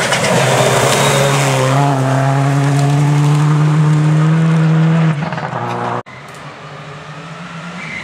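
Subaru Impreza rally car's flat-four engine held at high revs with a steady note as the car comes flat out over loose gravel and passes close by. The note breaks off about five seconds in. A sudden cut a second later leaves a quieter, more distant car engine.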